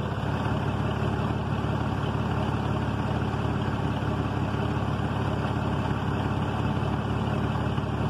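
Ford van engine idling steadily, heard from under the open hood.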